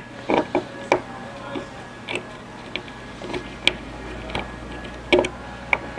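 Irregular light clicks and taps of a plastic paddleboard side fin knocking in its fin box as it is worked loose and pulled out by hand.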